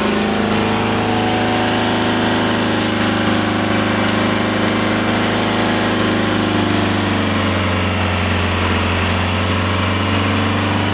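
Mercedes E 220 CDI (W212) four-cylinder diesel engine running steadily, with a deep, even drone. The mechanics suspect a worn engine or transmission mount is letting vibration through.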